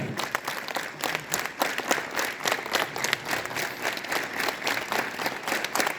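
A crowd of schoolchildren clapping their hands, many claps overlapping raggedly rather than landing in unison.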